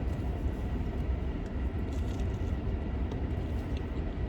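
Steady low rumble inside a car cabin, with a few faint light clicks over it.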